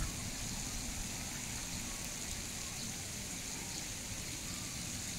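Steady outdoor ambience: an even hiss with a low rumble underneath and no distinct events.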